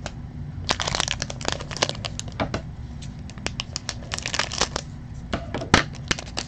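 Foil trading-card pack crinkling in the hands and being snipped open with scissors: a dense run of sharp, irregular crackles.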